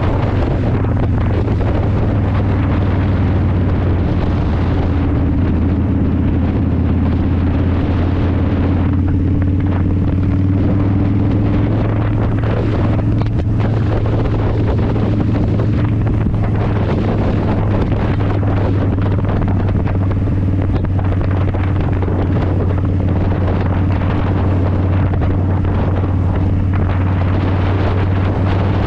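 Wind rushing over the microphones of a helmet chin-mounted GoPro Hero9 Black on a moving motorcycle, a steady loud low rumble mixed with the drone of the engine and road.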